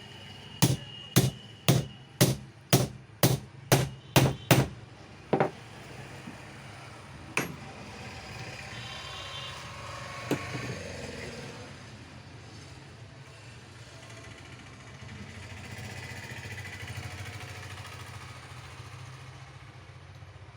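Hammer blows: a steady run of nine strikes about two a second, then three more single strikes spaced a second or more apart. After that only a low background hum remains.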